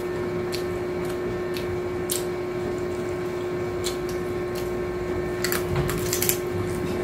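A steady background hum with scattered small chewing clicks; about five and a half seconds in, a short run of crisp crunches as a hard corn taco shell is bitten.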